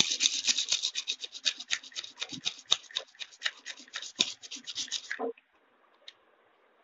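Sharpening stone rubbed back and forth along the bevelled edge of a dull small scissor blade, in quick scraping strokes about eight a second. It stops about five seconds in.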